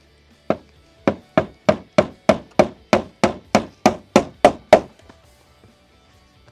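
Hammer blows during a roof fascia and flashing repair: fourteen sharp strikes, about three a second after a short pause following the first, ending about five seconds in.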